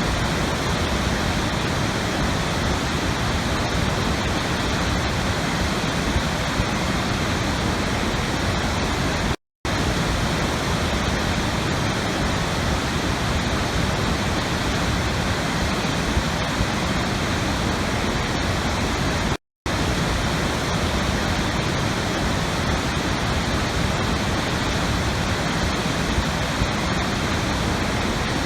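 Steady rushing water, like a waterfall, as an even, dense hiss. It cuts out completely for a split second twice, about ten seconds apart.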